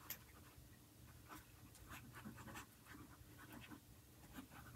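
Faint, irregular scratching strokes of a small applicator tip rubbed over paper, over a low steady room hum.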